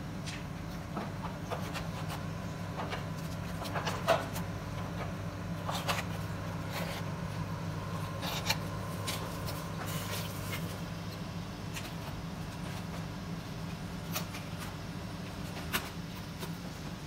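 Metal knife and fork clinking and scraping against a stainless steel pot while cabbage leaves are loosened in boiling water, a few sharp knocks among them, the loudest about four seconds in. A steady low hum runs underneath.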